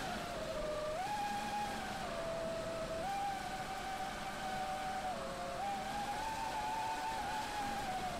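Mini FPV quadcopter's Emax RS2205 2600KV brushless motors and three-blade propellers whining steadily in flight. The pitch steps up and down every second or two with throttle changes and falls slightly near the end.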